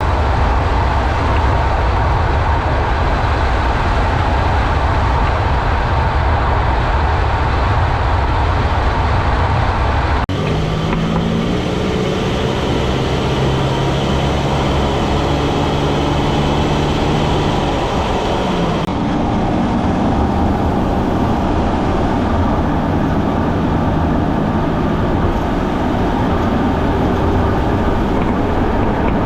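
A moving car's road and running noise, with a clicking from underneath the front left corner as it goes over bumps, the sign of a fault at that corner.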